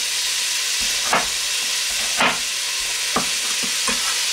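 Pork and onion frying on high heat in a large stainless steel pot, a steady sizzle, with four short knocks about a second apart.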